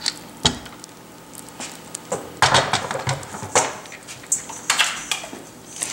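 Metal cookware being handled at a stainless steel Instant Pot: a knock about half a second in, then a run of clatters and scrapes in the middle and another near the end.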